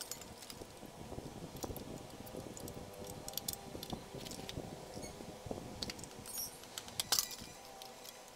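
Irregular small metallic clicks and clinks from hands and a screwdriver working inside an electric rice cooker's metal body, with a sharper knock about seven seconds in.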